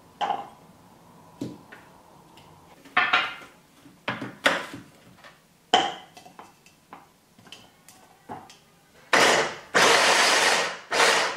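Light clicks and knocks as pieces of onion and chili go into a plastic chopper bowl and the motor unit is fitted. Then, about nine seconds in, a Philips hand blender's chopper attachment runs in short pulses, each about half a second to a second long, mincing them.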